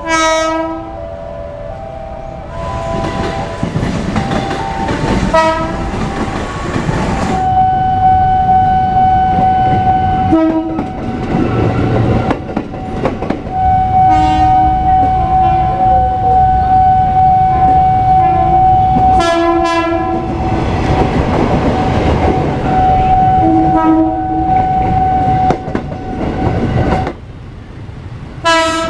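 KRL electric commuter trains sounding their horns, one train after another with abrupt changes between them: short blasts rich in overtones and several long, steady single-pitch blasts, over the rumble and clatter of trains running on the rails.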